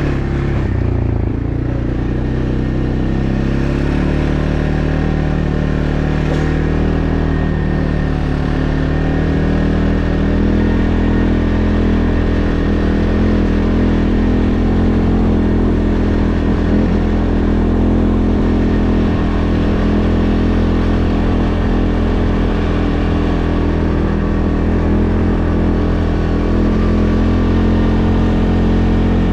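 An engine running steadily, its pitch rising a little in the first ten seconds and then holding.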